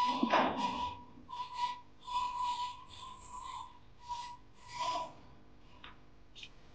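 Breathy whistle-like tone held at one pitch, sounding as a string of short notes with a hiss of breath over each, and a louder rustle near the start.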